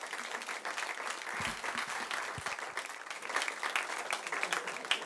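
Audience clapping steadily for the speaker at the end of a talk.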